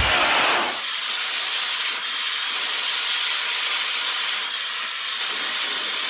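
Dyson Supersonic hair dryer running: a steady rush of air with a thin high whine over it, blowing on hair as it is brushed. For about the first second the airflow also buffets the microphone with a low rumble.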